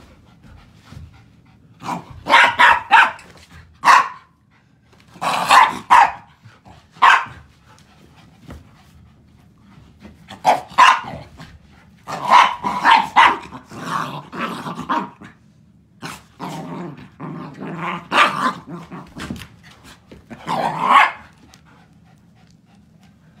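Two dogs barking and play-growling in rough play, in repeated short bursts.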